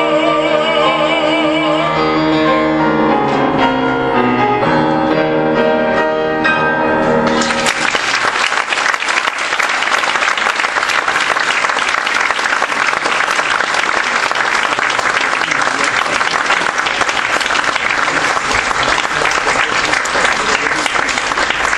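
A male opera singer holds a final note with vibrato over grand piano accompaniment, then the piano plays a closing passage of descending notes alone. About seven seconds in, the audience breaks into steady applause that continues.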